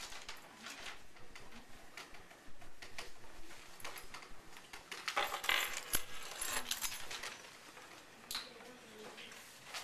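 Sheets of paper rustling as they are handed out across desks, among scattered small clicks and clatter, with the rustling densest about halfway through.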